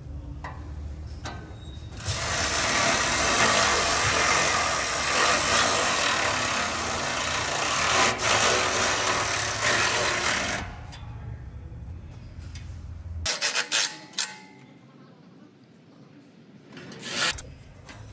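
Milwaukee cordless power tool running in a bolt, a steady whir for about eight seconds that starts about two seconds in. A few sharp clicks come later.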